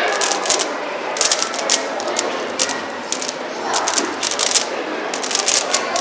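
Rubik's Cube turned fast in one hand: its plastic layers click in rapid runs with short pauses between them.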